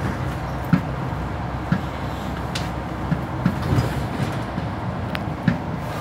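Mercedes-Benz Citaro O530G articulated bus running, a steady low rumble with irregular knocks and rattles, about one a second.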